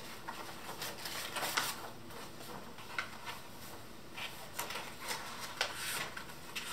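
Sheets of printer paper rustling and crinkling as they are handled and shuffled. The crackles come irregularly, several times a second.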